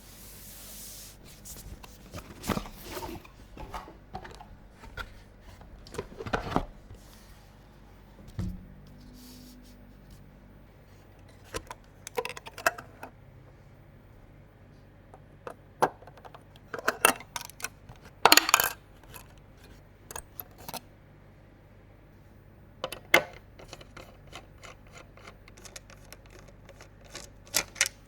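PC components and packaging being handled: scattered sharp clicks, taps and light metallic clinks, irregular, with a louder cluster about two-thirds of the way through.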